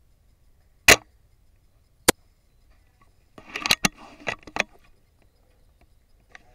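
VSR-10 spring-powered airsoft sniper rifle firing once, a sharp loud crack about a second in. A single click follows a second later, then a quick run of clicks and rattles near the middle as the bolt is cycled, and a faint click near the end.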